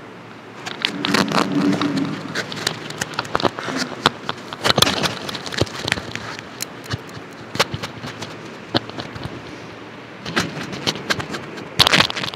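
Irregular knocks, clicks and rustling close to the microphone, with a louder cluster of knocks near the end: handling and movement noise after the sermon has ended.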